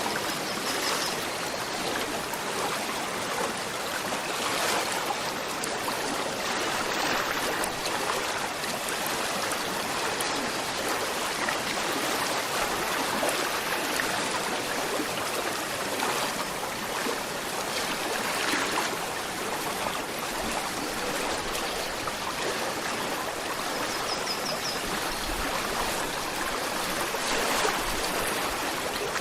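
A gentle river flowing steadily, a continuous even rush of running water.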